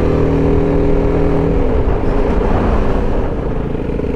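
BMW G310GS single-cylinder motorcycle engine running as the bike rides downhill. The note is steady for the first couple of seconds, then turns rougher and less even.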